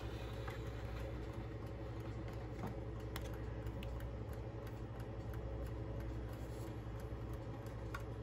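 Vintage Heiss bim-bam mantel clock's mechanical movement ticking, with faint irregular clicks as its minute hand is turned by hand, over a steady low hum.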